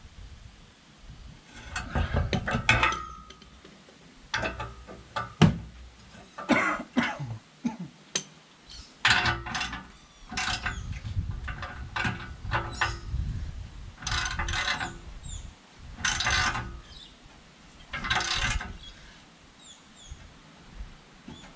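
Ratchet socket wrench clicking in repeated bursts of about a second each, with short pauses between, as nuts and bolts are tightened.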